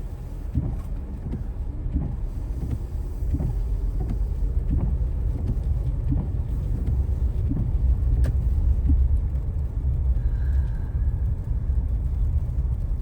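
Steady low rumble of a car's road and engine noise heard from inside the cabin while driving through snow, with a faint soft knock repeating about every 0.7 seconds.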